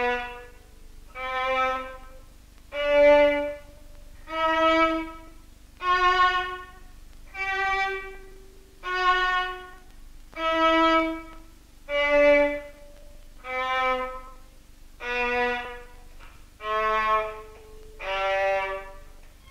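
A violin played back from a reel-to-reel tape recorder: a slow run of separate bowed notes at changing pitches, about one every second and a half, each swelling and fading, over a faint steady tone.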